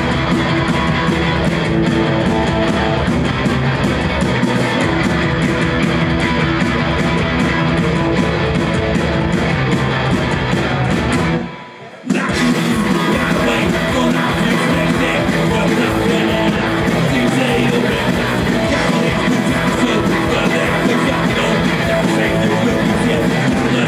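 Punk rock band playing live at full volume, with electric guitar to the fore. About halfway through the music suddenly breaks off for a moment, then comes back in at full volume.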